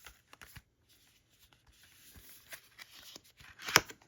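Paper envelope being opened and glossy art cards slid out: rustling paper and light taps, with one sharp, louder snap near the end.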